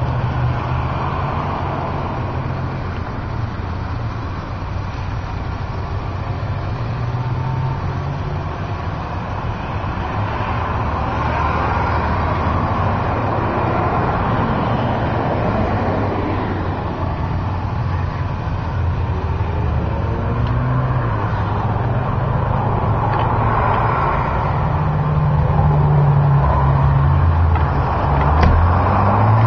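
Steady motor-vehicle engine noise, a low hum that shifts in pitch, growing louder near the end.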